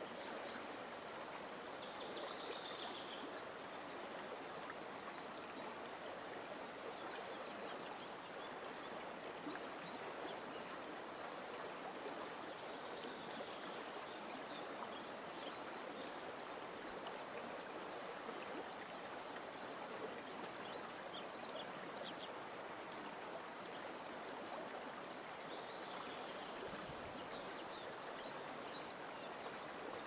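Steady rushing and babbling of a river's current, unchanging throughout. Small birds chirp and twitter intermittently above it, in short high notes, in clusters about a third of the way in and again later on.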